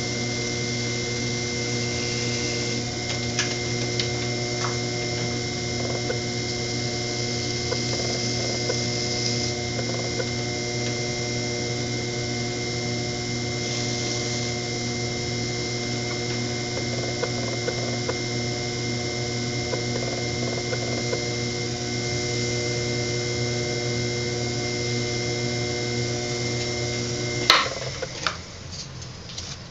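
Electric potter's wheel motor running at a steady speed with a constant hum and a few faint ticks over it. Near the end it is switched off with a sharp click and the hum stops abruptly.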